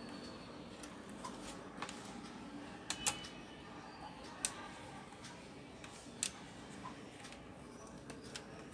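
Scattered small plastic clicks and taps from a laptop's top casing as it is pressed and worked into place with a small metal tool, several sharp clicks a second or so apart, over a faint steady hum.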